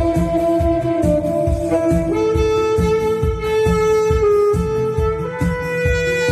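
Tenor saxophones playing a slow melody in long held notes, over a backing track with a steady low beat.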